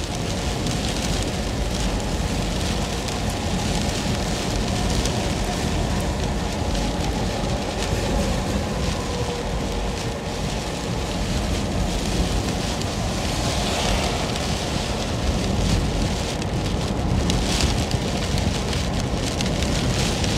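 Heavy rain and wind on a car driving on a wet road, heard from inside the cabin: a steady, loud rush with a deep rumble underneath.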